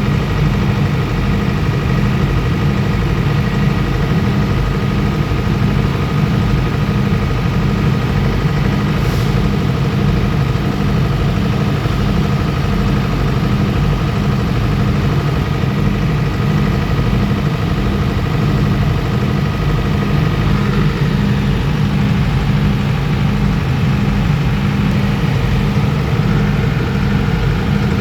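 A railway power car's diesel generator set running loud and steady at constant speed, a continuous heavy engine drone.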